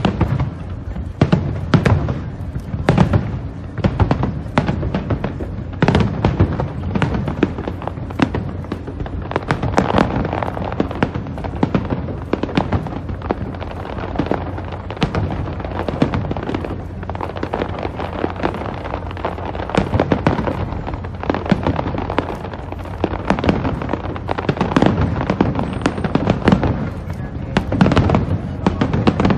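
Aerial firework shells bursting in a rapid barrage: a dense run of sharp bangs, several a second, with crackling between them.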